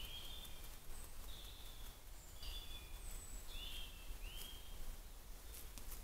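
Woodland songbirds calling: a run of short whistled notes, many rising and then levelling off, with a few higher, thinner notes among them, over a low steady rumble.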